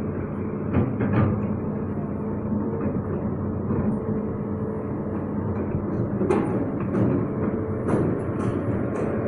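Hitachi excavator running steadily, with sharp metallic clanks a second in and several more in the last few seconds.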